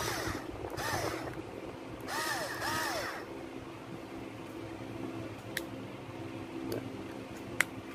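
Small 4.2-volt cordless screwdriver motor whirring in short trigger bursts, about three times in the first three seconds, each rising in pitch as it spins up and falling as it winds down. A couple of sharp clicks come later over a steady low hum.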